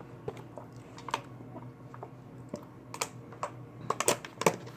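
Irregular light clicks and taps, coming thicker and louder near the end, over a faint low hum.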